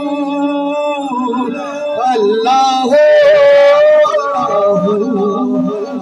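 Men singing a naat through microphones and a PA, unaccompanied devotional chanting with melismatic lines. A long held note about halfway through is the loudest part.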